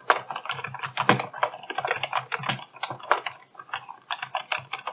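Typing on a computer keyboard: a quick, uneven run of key clicks.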